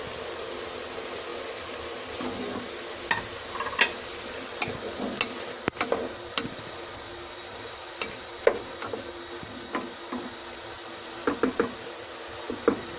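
Food sizzling in a cooking pot while a spoon stirs it, with scattered clicks and scrapes of the spoon against the pot.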